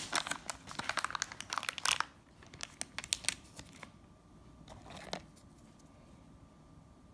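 DunkAroos snack packaging crinkling and tearing as it is handled and opened: dense crackling for about two seconds, then a few scattered crackles and one short burst about five seconds in.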